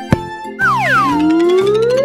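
Cartoon sound effects over children's background music: a sharp kick just after the start, then whistle-like swoops that slide down and then rise in pitch as the soccer ball is sent rolling.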